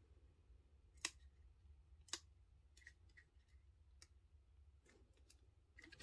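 Near silence, broken by two sharp clicks about a second apart and a few fainter ticks: fingers and nails tapping on cardstock as a die-cut paper piece is pressed down onto a card.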